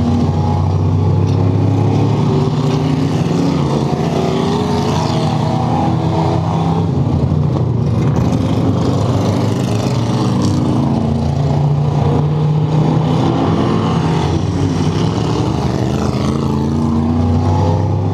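Dirt-track race car's engine running hard, heard from inside the cockpit, its pitch rising and falling a little with the throttle.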